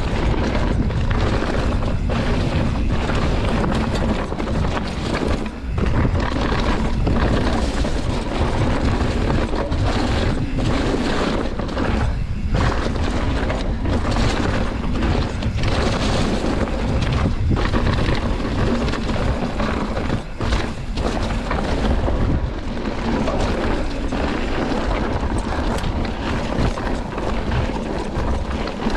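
Wind buffeting the camera microphone and the low rumble of a mountain bike riding fast down a rough downhill trail, steady and loud with a few brief dips.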